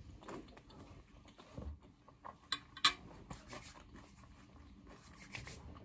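Quiet room tone broken by a few faint, short clicks and small table or mouth sounds; the sharpest click comes about three seconds in.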